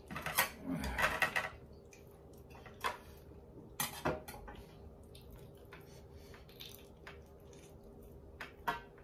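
Metal bowls and plates clinking and knocking as food is scooped from them by hand: a quick cluster of knocks in the first second and a half, then single clinks about three and four seconds in and again near the end.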